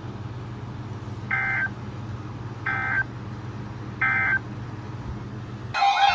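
NOAA Weather Radio sending the three short digital SAME end-of-message bursts that close an Emergency Alert System weekly test. Each burst is a brief two-pitch screech, about a second and a half apart, over a steady low hum from the radio. Near the end a loud sound with steady tones cuts in abruptly.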